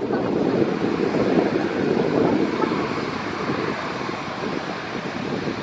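Airbus A320's jet engines running as the airliner rolls along the runway, a steady noise mixed with gusty wind buffeting the microphone.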